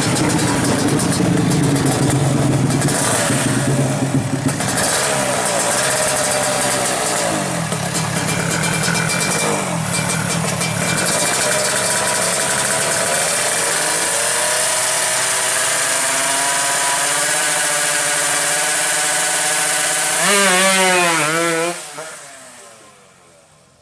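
Suzuki Satria 125cc two-stroke racing engine being revved repeatedly in place through its racing exhaust, its pitch rising and falling with each blip of the throttle. About twenty seconds in it screams up sharply as the bike launches off the line, and the sound fades fast as it pulls away.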